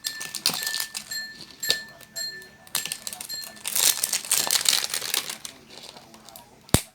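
Surprise-toy packaging crinkling and rustling as it is torn open by hand, with scattered clicks and one sharp snap near the end.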